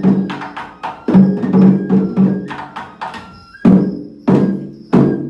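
Japanese festival dance music led by drums: strikes roughly every half second, each ringing on, with sharp clicks between them.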